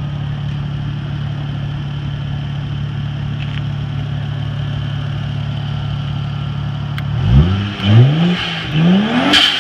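Three-litre twin-turbo inline-six engine of a Toyota Supra idling steadily, then revved in several quick blips about seven seconds in. Near the end, a short sharp hiss, the blow-off valve venting as the throttle snaps shut.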